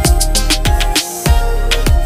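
Music with a steady beat: a deep kick drum whose pitch drops, hitting about every half second or so, over cymbal ticks and held notes.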